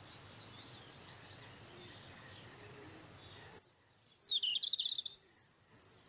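Outdoor ambience of birds chirping over a faint hiss. About three and a half seconds in, the background changes abruptly and a louder burst of bird chirps follows.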